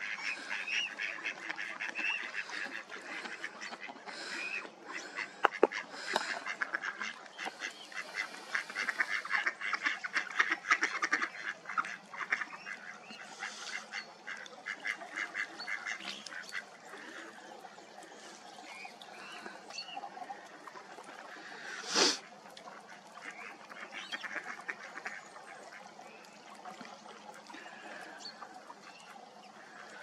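Ducks quacking, a busy run of rapid calls over the first half that thins out later, with one loud short sound about two-thirds of the way through.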